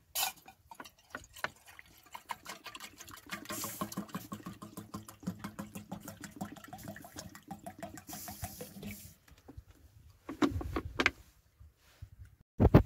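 Water poured from a plastic bottle into a metal mug, glugging steadily and stopping about nine seconds in. A few short, louder thumps follow near the end.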